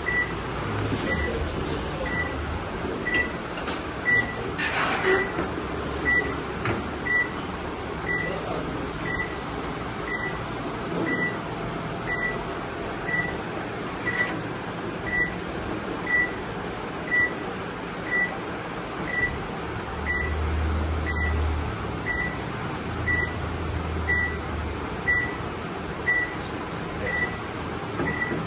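A short high-pitched electronic beep repeating about once a second over steady room noise, with a few brief rustles and knocks.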